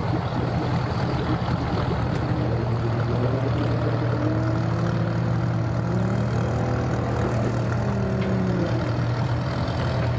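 Engine idling steadily with a low hum. Over the middle few seconds a second engine's pitch rises and falls.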